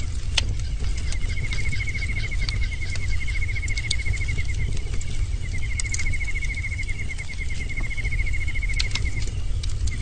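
Bonfire burning with a steady low rumble and frequent sharp crackles and pops. Over it, an insect trills rapidly in stretches a few seconds long, with a break near the middle.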